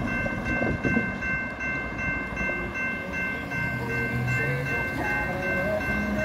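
GS Type 2 electronic crossing bell ringing steadily, a repeating tone that sounds while the crossing warning is active, over low road noise from a car crossing the tracks.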